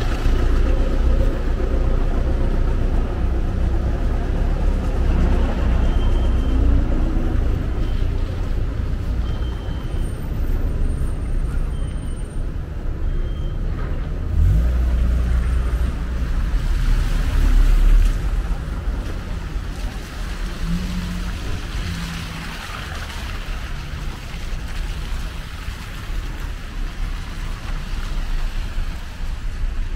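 City street traffic: a steady low rumble of passing cars and other vehicles, growing somewhat quieter after about 18 seconds.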